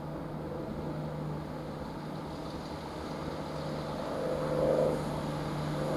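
Chiltern Railways Class 165 diesel multiple unit running at the platform, a steady low engine hum with a slight swell about four seconds in.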